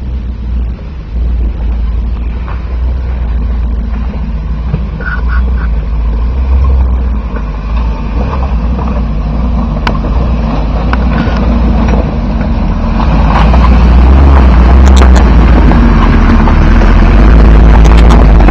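A lifted Jeep 4x4's engine runs with a low, steady rumble as it crawls slowly over a rocky trail. It gets louder as it draws alongside, about two-thirds of the way in, and sharp cracks and clicks come near the end as branches brush against it.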